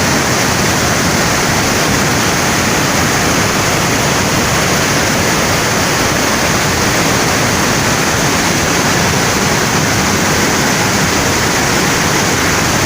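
A waterfall in flood, the river swollen with rainwater, pouring hard: a loud, steady rush of falling water with no letup.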